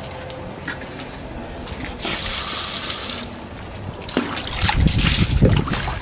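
Water splashing and trickling from a plastic mug onto a wet tiled floor. A steady pouring hiss starts about two seconds in, with heavier, irregular splashing and knocks near the end.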